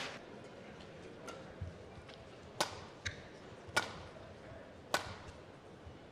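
Badminton rackets striking a shuttlecock back and forth in a rally: four sharp hits between about two and a half and five seconds in, over faint hall ambience.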